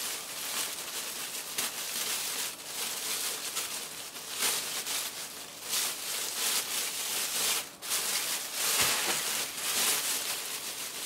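Thin plastic shopping bag crinkling and rustling as hands work at its tied handles, a continuous crackly rustle with a few sharper crinkles.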